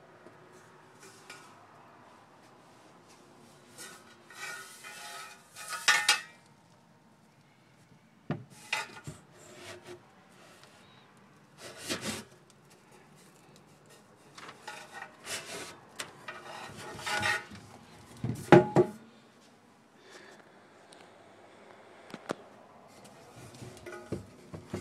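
Handling noise from a rusty steel motorcycle exhaust head pipe being turned over and shifted on a tabletop: scattered metallic scrapes, rubs and knocks. The loudest knock comes about three-quarters of the way in.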